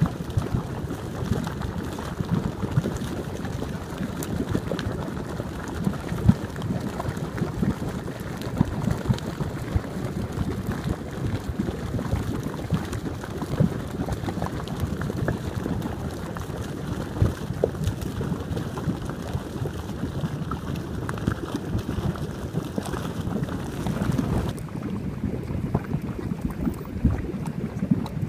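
Geothermal mud pots bubbling and spattering: a dense, continuous crackle of small pops as gas bursts through the mud. The higher hiss thins out near the end while the popping goes on.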